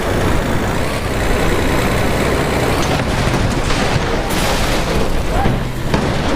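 Loud, steady rumbling like a heavy truck engine, with a few sharper knocks in the second half.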